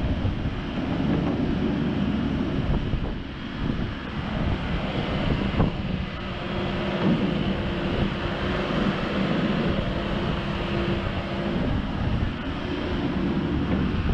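Diesel engine of a Komatsu PW98MR-6 wheeled excavator running under load with the hydraulics working as the boom, stick and bucket move and the upper structure swings. A steady hum grows stronger for a few seconds past the middle. Wind buffets the microphone.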